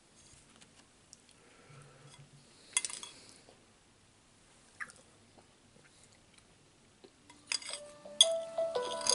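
A metal spoon clinks a few times against a ceramic soup bowl while eating. About seven and a half seconds in, a cell phone ringtone starts playing a melody, louder than anything before it.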